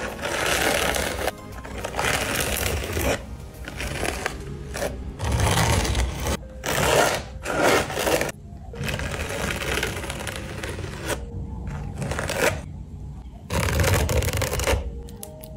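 Metal palette knife spreading and scraping thick yellow paint across a canvas, in a series of wet, smearing strokes about one to two seconds each, with short pauses between them.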